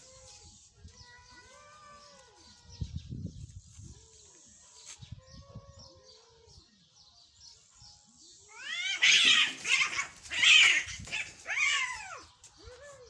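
Cats in a standoff: low, drawn-out yowls that rise and fall, one every second or so, then about eight seconds in a loud screeching outburst lasting some four seconds as they fight.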